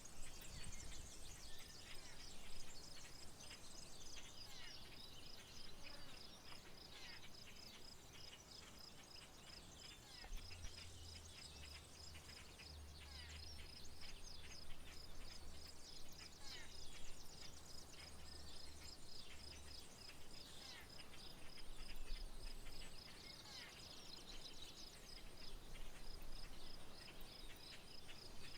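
Outdoor rural wildlife ambience: a steady, evenly pulsing high insect trill, with many short bird chirps and calls over it. A low hum comes in about a third of the way through and fades out about ten seconds later.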